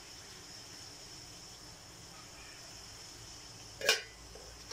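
Faint steady background hiss with a thin high-pitched hum while the pork steak sits in the wok on the gas stove, then one sharp clatter of kitchenware about four seconds in.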